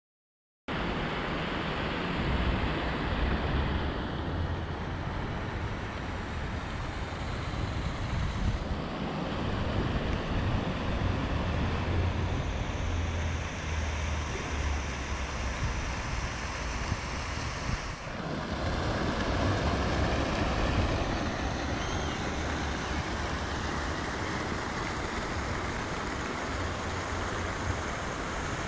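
Outdoor waterside noise: wind rumbling on the microphone over a steady wash of water. It starts about a second in and shifts abruptly a few times where takes are cut together.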